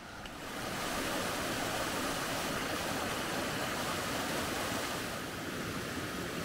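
A small woodland waterfall: water cascading down a rocky stream, a steady rushing hiss that swells up about half a second in and eases a little near the end.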